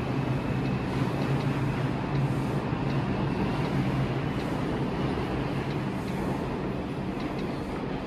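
R142 subway train running past along the station platform: a steady rumble with a low hum and faint, irregular clicks, easing off slightly near the end.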